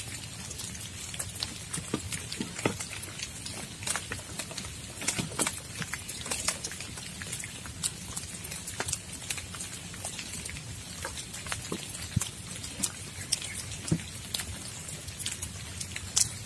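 Rain falling, with large drops tapping irregularly several times a second over a steady hiss.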